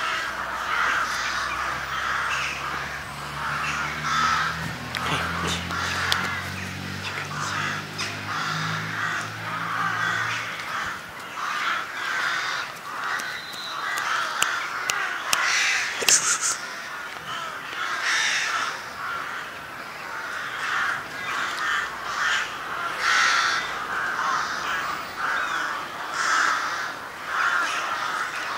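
Crows cawing repeatedly, harsh calls about once a second. A low droning hum, like a distant motor, runs underneath and stops about ten seconds in.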